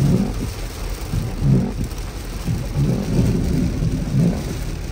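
Heavy rain hitting a car, heard from inside the cabin: a steady hiss with uneven low rumbles coming and going.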